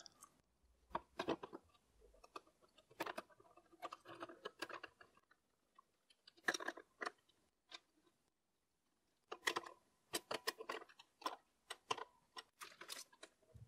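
Faint, irregular clicks and light metallic taps of a screwdriver and small screws against a steel bracket and sheet-metal panel, coming more often in the last few seconds.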